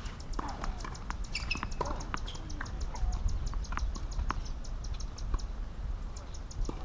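Outdoor ambience: a rapid, regular high-pitched ticking, about five ticks a second, that breaks off for about a second near the end, over a low wind rumble on the microphone, with a few scattered knocks and short chirps.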